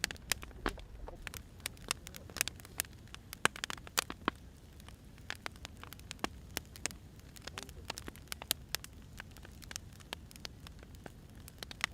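Wood fire crackling: burning firewood giving off irregular sharp pops and snaps, a few louder ones standing out, over a soft steady hiss.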